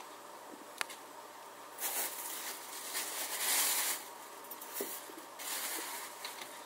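Clear plastic bag of potting soil crinkling as it is handled, starting about two seconds in and dying down after about five seconds, loudest near the middle; a small click comes just before it.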